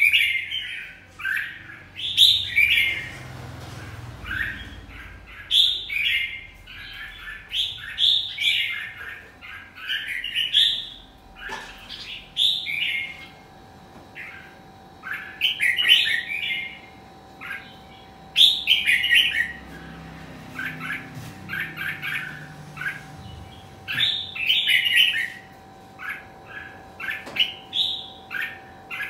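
Red-whiskered bulbul singing: short phrases of quick rising and falling notes, repeated about once a second, with a few pauses of a couple of seconds.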